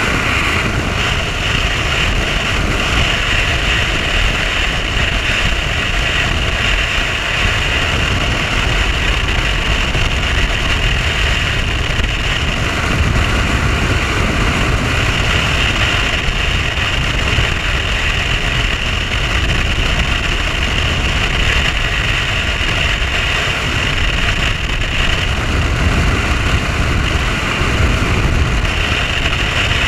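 Mercury 150 OptiMax outboard pushing a bass boat at steady high speed, a constant engine drone mixed with a heavy low rumble of wind on the microphone.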